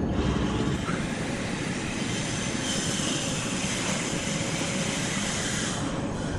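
Large sawmill saw cutting through a log: steady machine noise throughout, with a high screech from the blade in the wood from about three seconds in until shortly before the end.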